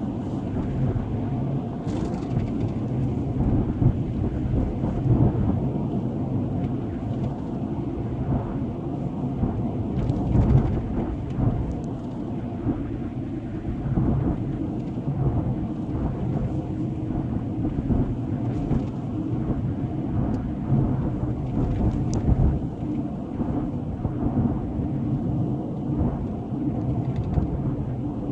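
Steady low rumble of road and engine noise inside a moving vehicle's cabin as its tyres run over a rough, cracked highway, with occasional thumps from bumps in the pavement.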